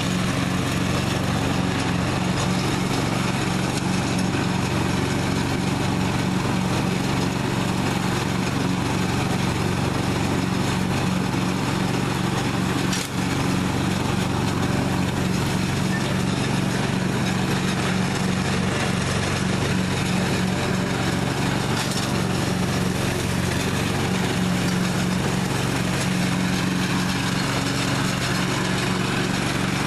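1998 Husqvarna riding lawn mower's engine running steadily while mowing, with a brief dip about thirteen seconds in.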